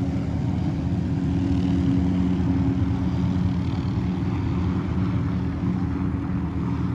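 Helicopter flying, a steady drone of rotor and engine with a constant low hum.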